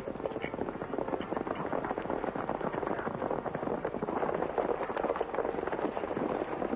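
Several horses galloping together, a dense, unbroken clatter of hoofbeats.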